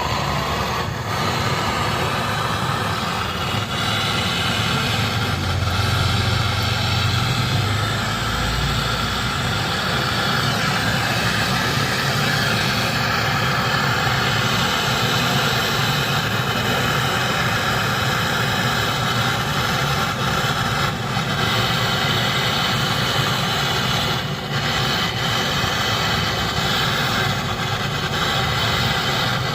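A machine motor running steadily, switched on abruptly and holding an even, loud drone.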